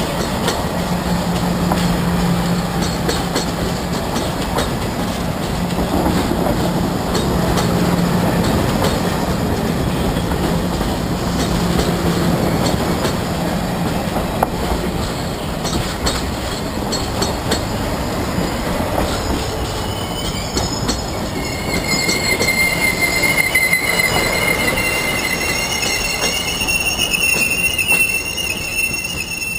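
Passenger train cars rolling past at close range, their wheels clattering steadily on the rails. From about twenty seconds in, the wheels squeal in several high, wavering tones.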